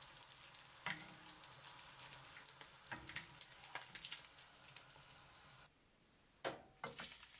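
Fried egg sizzling in hot vegetable oil, the oil crackling with many small quick pops. The sizzle cuts off suddenly about three-quarters of the way through, followed by a couple of short knocks.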